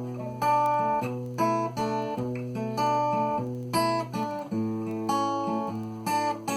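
Cort GA5F-MD acoustic guitar, with a solid spruce top and solid Madagascar rosewood back and sides, played fingerstyle. Plucked melody notes over held bass notes, with a new note every half second or so.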